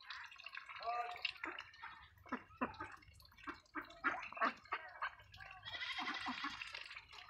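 A flock of domestic ducks dabbling and slurping wet feed from a bowl: a rapid patter of wet bill-clicks and splashes, with a short quack about a second in.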